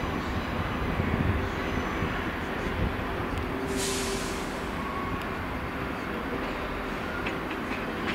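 GWR Hitachi Class 800-series Intercity Express Train rolling slowly over pointwork: a steady rumble of wheels on rails, with a short hiss about four seconds in.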